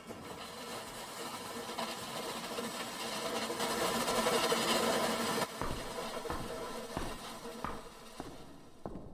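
A swelling, hissy rush that is loudest about four to five seconds in and cuts off suddenly, followed by slow footsteps on a stage floor, a little more than one step a second.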